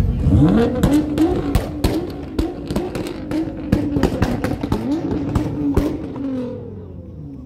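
A modified car's engine is revved up and held high with small blips, while the exhaust lets off a rapid string of sharp pops and cracks. The revs drop away about six seconds in.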